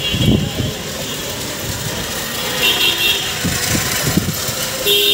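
Busy street traffic heard from a moving cycle rickshaw, with a vehicle horn honking briefly about three seconds in and again near the end.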